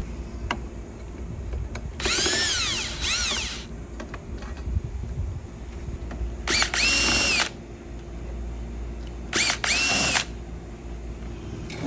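Cordless drill/driver running in several trigger bursts, unscrewing the fasteners to take a stiff commercial push-bar lock off a door: a longer burst about two seconds in with the pitch rising and falling, a steady one near the middle, and two short ones near the end.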